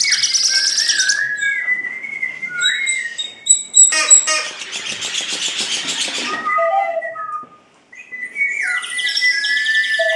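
Bird-like whistling and chirping: sliding whistled tones mixed with rapid high chirping trills, with a burst of rustling noise in the middle and a short pause near the end.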